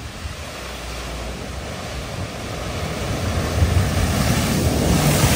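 A vehicle driving through a flooded ford, its engine running under the rush and splash of water. The sound grows louder over the last few seconds.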